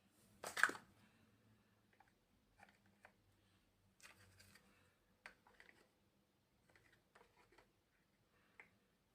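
Small plastic building blocks being handled and fitted together: scattered faint clicks and light rustles. There is a louder short scrape about half a second in.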